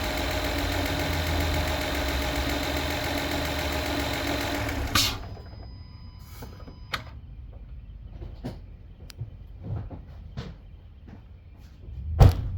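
2016 Acura RDX's 3.5-litre V6 running steadily. The owner is chasing a ticking that rises and falls with rpm since a spark plug change and timing belt job. About five seconds in the engine sound stops abruptly with a sharp click, followed by scattered light clicks and one heavy thump near the end.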